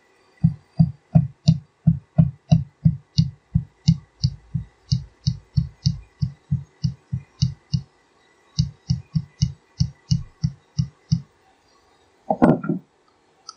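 A plastic-faced mallet tapping a pin punch at a steady three or so blows a second, driving a roll pin into the cast-iron valve body of a 200-4R transmission. Each blow is a dull knock with a light metallic click. The tapping pauses briefly partway through, resumes, then stops, and a short vocal sound follows near the end.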